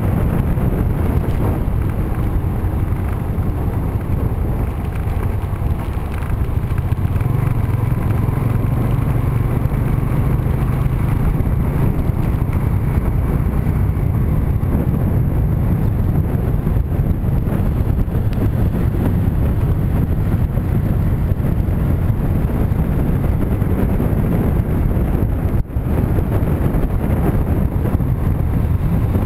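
Motorbike engine running steadily while riding along, mixed with wind noise on the microphone. Near the end the sound drops out for a moment.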